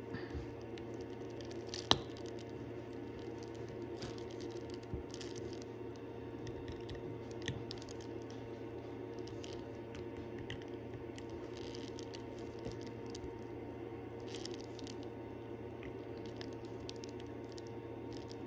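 A few faint, sharp clicks of small metal tools against a wristwatch case and movement, the sharpest about two seconds in, over a steady low background hum.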